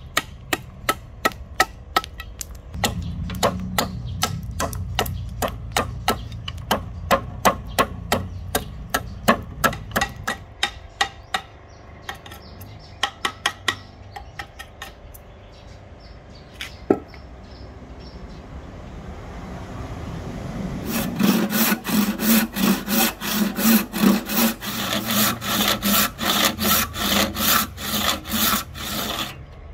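A large knife set against a rosewood axe-handle blank, its back struck with a wooden mallet about two to three times a second, chipping out the waste between saw kerfs; the strikes thin out after about ten seconds. About twenty seconds in, a handsaw starts cutting rosewood in quick, even strokes of a little over two a second.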